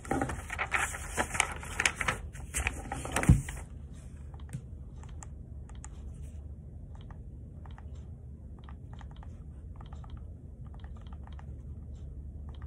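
Paper rustling and handling clicks close to the microphone, with a sharp knock just after three seconds; after that only faint scattered clicks over a steady low hum.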